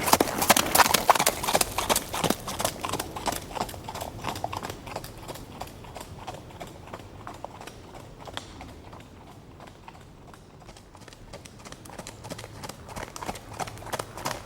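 Horse hooves clip-clopping in a quick, steady rhythm, growing fainter to their quietest about two-thirds of the way through, then louder again near the end.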